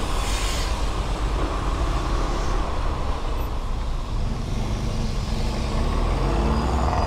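Small motorcycle engine running steadily at low speed while riding between cars in city traffic, with the rumble of surrounding traffic. A brief hiss comes near the start.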